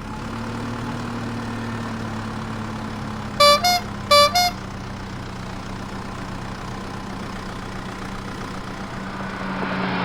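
A cartoon vehicle's engine sound effect hums steadily, and a horn honks twice in quick succession, each honk a short two-note beep. Near the end a rushing noise builds up louder.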